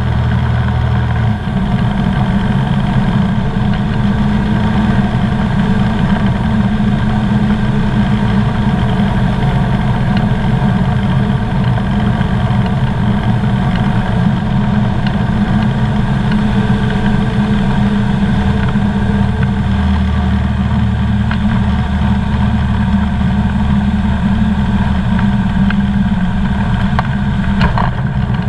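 Engine and propeller of a Comco Ikarus C42B ultralight aircraft, heard from inside the cockpit, running steadily through the final approach and landing roll. The low drone shifts slightly a couple of times.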